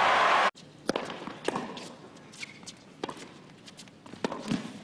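Crowd applause that cuts off abruptly about half a second in, followed by a quiet tennis court between points with scattered light taps and thuds.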